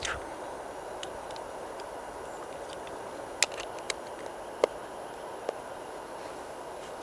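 Steady outdoor forest ambience, an even hiss, with four or five short sharp snaps around the middle.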